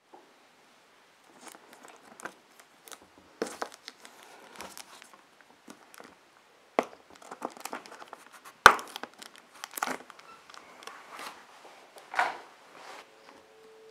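Clear plastic shrink-wrap on a cardboard figure box crinkling and crackling as fingers press and pick at it, in irregular crackles and clicks. A sharp snap about two-thirds of the way in is the loudest sound.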